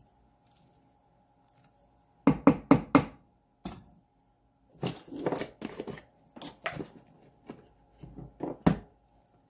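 Kitchen utensils and containers knocked and set down on a countertop: a series of sharp knocks, four in quick succession about two seconds in, then scattered knocks and thuds through the rest, over a faint steady hum.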